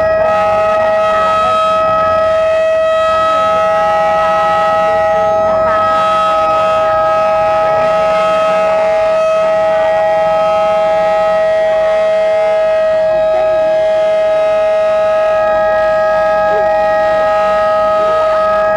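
Commemorative warning siren sounding one long, loud tone at a steady, unchanging pitch. It marks the moment of remembrance for the Battle of Five Days.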